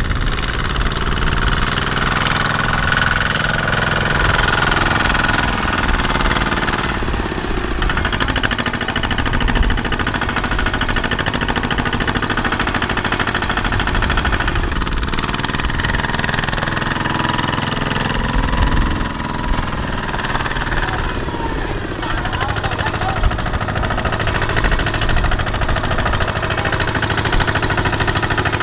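Kubota ZT140 single-cylinder diesel engine of a two-wheel walking tractor running steadily with a rapid knocking beat. It is under load, pulling a sack-laden trailer through deep mud.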